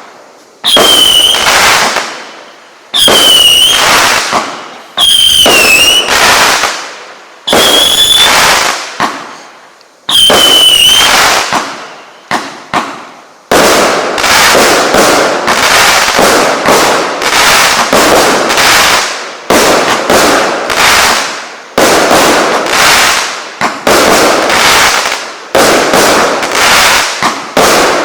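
A 0.8-inch calibre consumer fireworks cake battery firing. First come about five separate shots, each with a high whistle trailing it. From about halfway on it fires a fast string of shots and bursts, roughly two a second.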